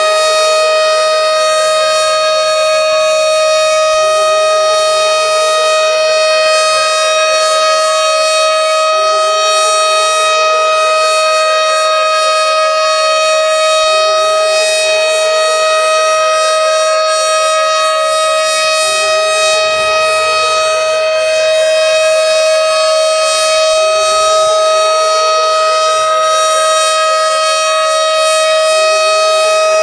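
Tornado siren sounding a loud, steady tone. A fainter rising sweep repeats about every five seconds beneath it.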